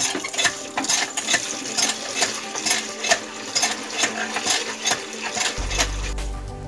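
Hand water pump being worked: rhythmic metal clanks from the handle and plunger, about two to three a second, with water gushing from the spout into a plastic bucket.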